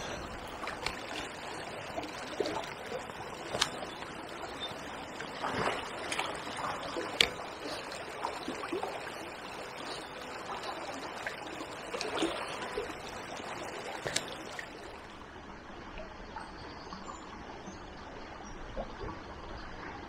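A small river running, a steady trickle of water with scattered small splashes and plinks.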